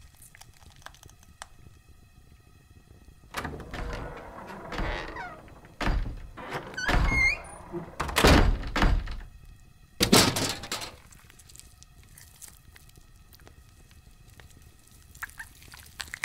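A run of heavy thuds and knocks with a deep low end, from about three seconds in to about eleven seconds in, the loudest near eight and ten seconds, with a few short squeaks rising in pitch around seven seconds.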